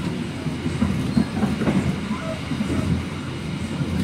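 Kutojaya Selatan passenger train running, a steady low rumble with irregular clatter from the wheels on the track.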